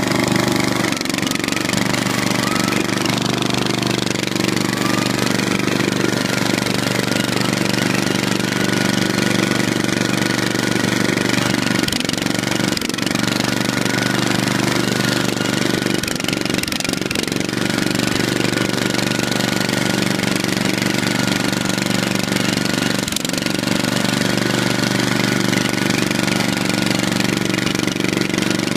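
Small engine of a riding lawn tractor modified for off-road 'romping', running steadily while it is driven, heard from the seat, with a few brief dips in its note.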